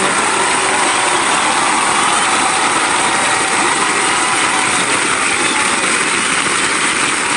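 Studio audience applauding and cheering, a steady dense clapping.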